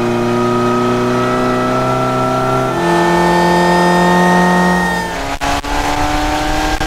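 Supercharged Mazda Miata engine with an Eaton M45 supercharger running under throttle, a steady many-toned engine and supercharger note. Its pitch steps up about three seconds in and drops about five seconds in, followed by a few short breaks. The setup now has a blow-off valve fitted to vent boost off throttle.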